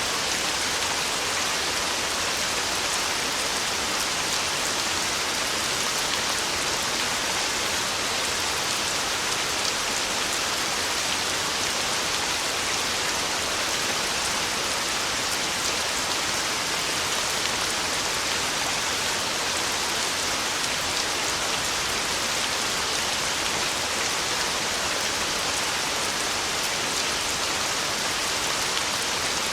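Heavy rain falling steadily on a tin roof, a dense even hiss full of fine drop clicks.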